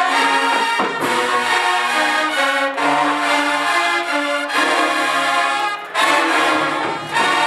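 Marching band playing loud, sustained brass chords from trombones and trumpets, with short breaks between held chords and one about six seconds in.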